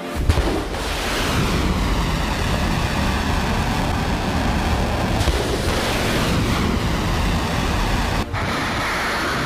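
Ship-launched missile firing: a sudden loud blast as the rocket motor ignites, then a steady rushing roar of its exhaust.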